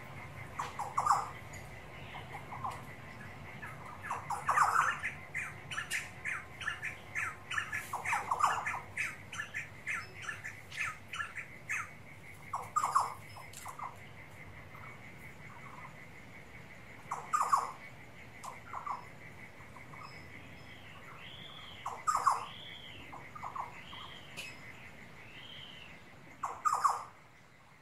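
Recorded Australian bush ambience: birds calling, the strongest call repeating about every four to five seconds, with a rapid run of chirps in the middle and a few short arching notes near the end. Crickets keep up a steady high trill underneath.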